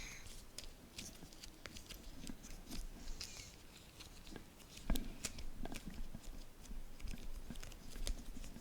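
Slime being squeezed and poked by hand, with scattered small sticky clicks and faint crackles, the loudest click about five seconds in.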